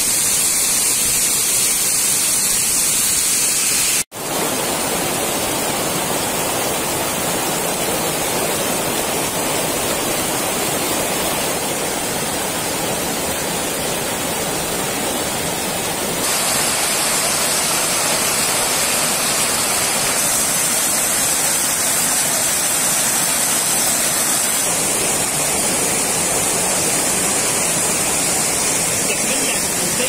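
Water cascading steadily over rocks in a small waterfall and stream, a continuous rushing, with a split-second gap about four seconds in and a slight change in tone about sixteen seconds in.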